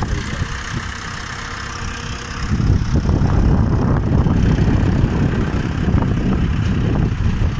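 Mahindra 595 Turbo tractor's four-cylinder turbo diesel engine running under load as its front dozer blade pushes soil, with a heavy low rumble. It grows louder about two and a half seconds in.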